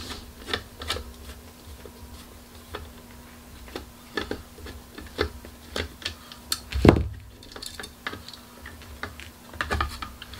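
Small metallic clicks and taps of a Phillips screwdriver backing screws out of a graphics card's I/O bracket, irregular and spread throughout, with one louder knock on the table about seven seconds in.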